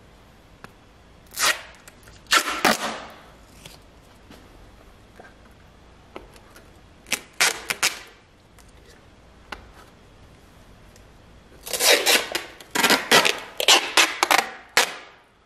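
Thin plastic bottles of vinegar being handled and their screw caps twisted off: separate bursts of crinkling and crackling plastic, with a busy run of them near the end.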